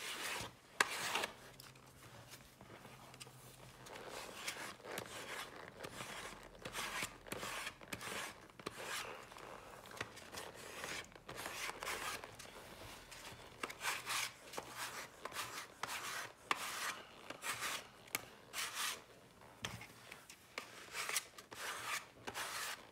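Coarse sandpaper on a hand sanding block rubbing over the edge of a leather insole on a wooden shoe last. Short scratchy strokes come in irregular runs, smoothing the insole's edge into an even curve around the toe.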